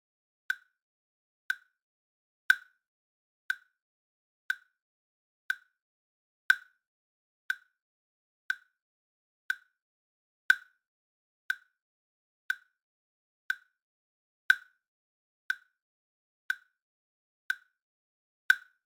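A countdown timer's tick sound effect, a short sharp tick once every second, with every fourth tick louder.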